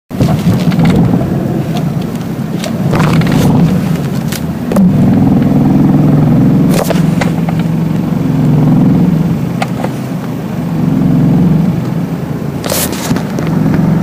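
BMW E46 318i's M43 1.9-litre four-cylinder engine idling roughly, heard from inside the cabin, its sound swelling and sagging unevenly every couple of seconds. A few sharp clicks stand out along the way. This is the intermittent rough idle the owner cannot trace.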